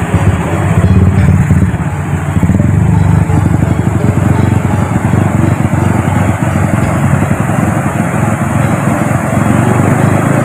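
Swollen, muddy river in flood after heavy rain, rushing hard over a weir with a loud, steady, deep rush of water.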